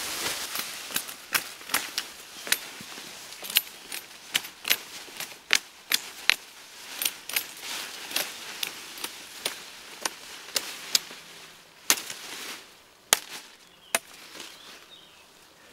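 Long-handled billhook chopping through brush and saplings: sharp, irregular strikes of the blade on wood, about one or two a second, with one louder strike near the end. This is the brush-clearing ('arroncare') of a wild plot to make ground for sowing.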